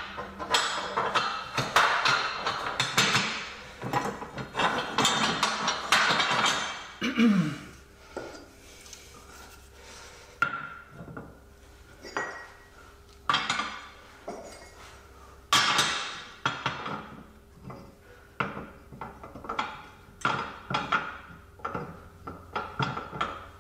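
Steel press-kit cups and tools clattering and clinking as they are handled and tried against a ball joint. The clatter is busy for the first several seconds, then breaks into separate sharp knocks.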